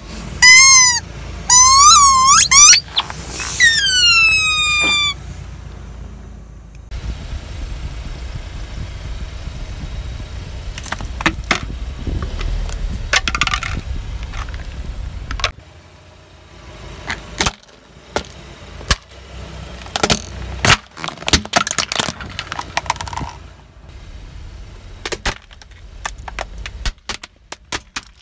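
Hollow vinyl toy pumpkins squealing as a car tyre squashes them: several high squeals, the last one longer and falling in pitch. Then the car rolls slowly with a low rumble while plastic crunches and cracks under the tyre, ending in a run of sharp separate cracks and snaps.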